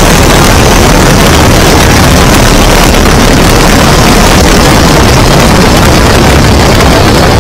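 Great Lakes biplane's engine and propeller running, loud and steady, with wind rushing over a camera mounted on the airframe.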